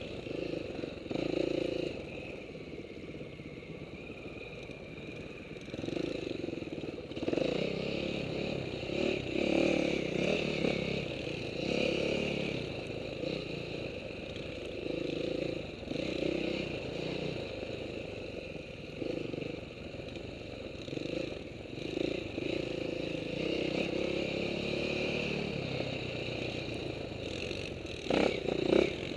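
Dirt bike engine heard from the rider's helmet camera, revving up and easing off over and over as the throttle is worked on a rough trail, with rattling from the bike. A few sharp knocks near the end.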